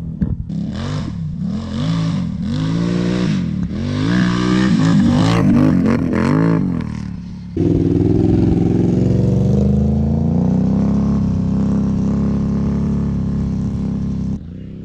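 2022 Can-Am Renegade ATV's V-twin engine through an Empire Industries dual exhaust, revved in a series of quick throttle blips. It then jumps to a steady high run that eases slightly before stopping abruptly near the end.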